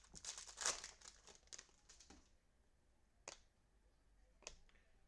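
Trading cards and their foil pack wrapper being handled, with crinkling and rustling for about two seconds, then two light clicks as the cards are shuffled along.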